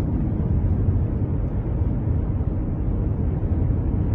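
Steady low rumble of road and wind noise from a car moving along a highway.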